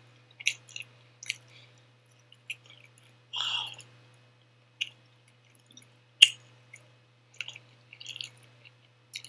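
Close-miked chewing and wet mouth smacks of a person eating pizza: a scatter of short clicks and smacks, with a louder wet burst about three and a half seconds in and a sharp click just after six seconds.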